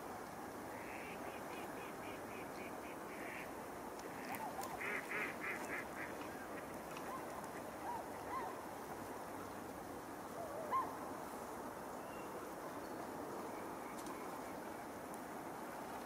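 A large flock of ducks and swans calling on a river at night: a rapid run of short calls about five seconds in, then scattered single calls, the loudest near the end, over steady background noise.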